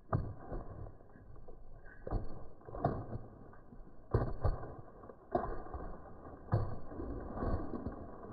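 Horse's hooves thudding on a dirt track as it is ridden uphill at speed, in irregular heavy thuds roughly every second or so, with a scuffling sound between them.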